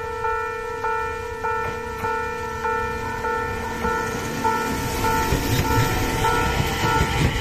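Japanese railway level-crossing alarm ringing steadily, about five strikes every three seconds. From about halfway, the rumble of an approaching electric train grows louder beneath it.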